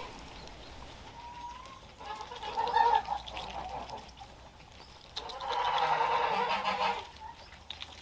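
Farm animals calling twice: a shorter call about two seconds in and a longer, louder one about five seconds in.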